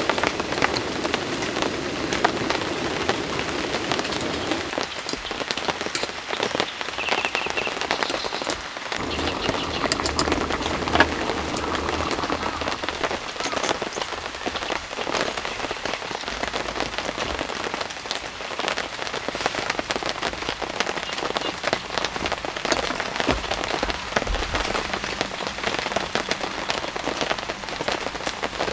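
Steady rain falling, with many single drops ticking on a surface.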